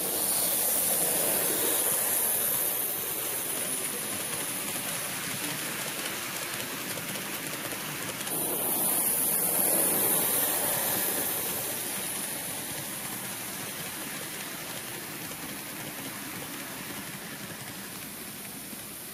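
HO gauge model train running along the layout track, its wheels rolling on the rails. The rolling noise grows louder about a second in and again around nine seconds in as the train passes close, then slowly fades.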